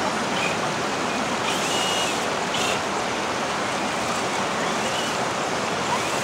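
River water rushing over a rocky shoal and through shallow rapids: a steady, even wash.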